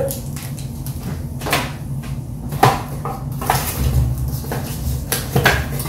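Cardboard packaging being handled: scattered light knocks, taps and scrapes as hands dig into a camera box.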